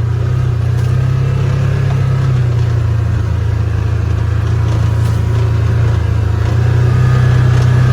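Polaris 4x4 engine running under way as it is ridden: a steady low drone that grows a little louder near the end.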